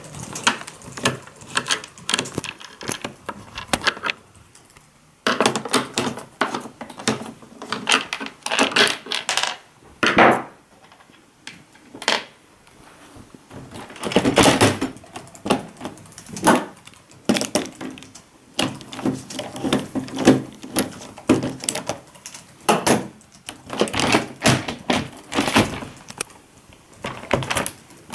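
Plastic rear cover of an LCD TV being worked free from its case by hand: irregular clusters of sharp clicks, knocks and plastic rattles with short pauses between them.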